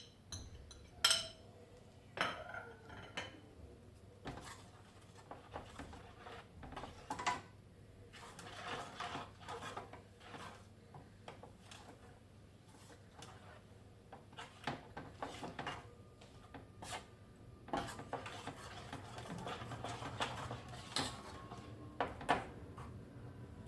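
Kitchen utensils clinking and scraping: a metal spoon knocking and scraping against pots and bowls in scattered strokes with short gaps, as spices are added to a pan of jaggery and water.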